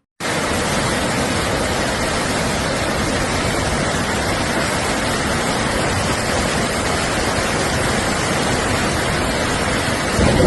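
Cyclone storm noise: a loud, steady rush of wind and rain that cuts in abruptly and cuts off abruptly.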